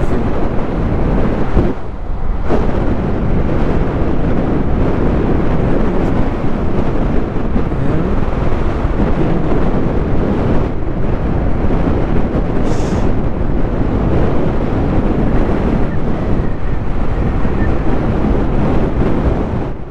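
Steady, loud wind rush buffeting the microphone of a moving off-road motorcycle, with a brief lull about two seconds in.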